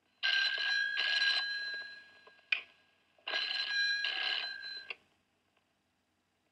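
A telephone ringing: two double rings about three seconds apart, each ending with a short click.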